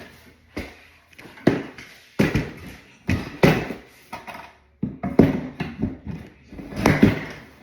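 A series of irregular knocks and clatters of hard objects being handled and set down, about eight in all, some with a short ring after them.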